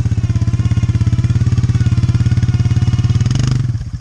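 Four-wheeler (ATV) engine running at a steady, pulsing idle close by. About three and a half seconds in there is a brief burst of noise, and the engine then runs a little quieter.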